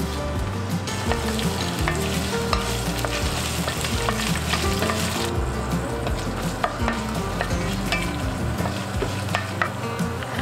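Aromatics (ginger, garlic, scallion and dried chillies) frying in hot oil in an enamelled pan. The sizzle strengthens about a second in and eases off about five seconds in, while a wooden spatula stirring and scraping gives scattered clicks and knocks.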